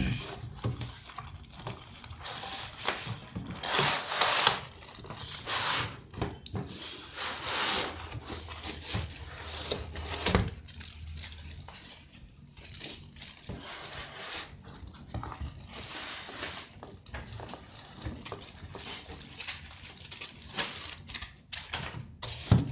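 Plastic wrapping and foam packing rustling and crinkling as a laptop is handled and slid out of its cardboard box, coming and going in irregular swells.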